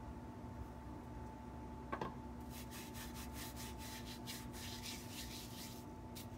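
Dried oregano crumbled between the fingers over a bowl. A single knock comes about two seconds in, then a quick run of short, dry rustles lasting about three and a half seconds.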